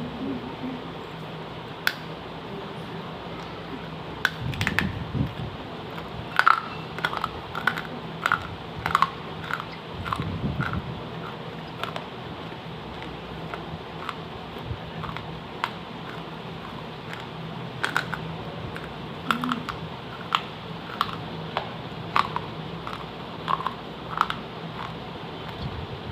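Crisp, irregular clicks and crunches of a fired clay kulhad cup being bitten and chewed, at times several a second, with a few dull low thuds, over a low steady hum.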